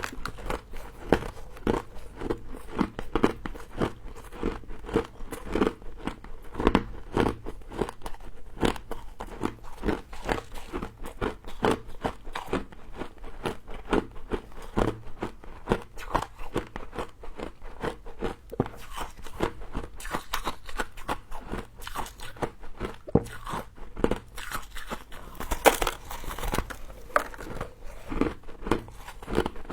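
Close-up crunching of a person biting and chewing freezer frost: a dense run of crisp, irregular crunches, several a second, with a louder cluster of bites near the end.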